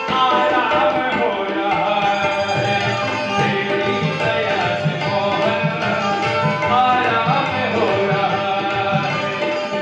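Live Indian music: tabla drumming steadily under harmonium and a wavering melodic line.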